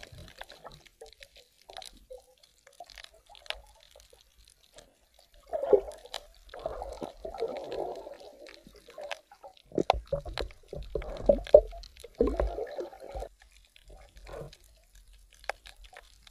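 Underwater sound from a camera below the surface: muffled bubbling and gurgling water in two stretches, the first about five seconds in and the second about ten seconds in, with scattered sharp clicks throughout.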